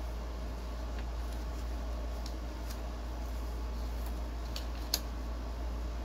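A few faint clicks and light rustles from small paper and cardboard phone-box packaging being handled by hand, the sharpest click just before the end. A steady low hum runs underneath.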